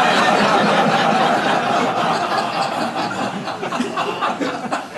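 Audience laughing at a punchline, loudest at the start and slowly dying down.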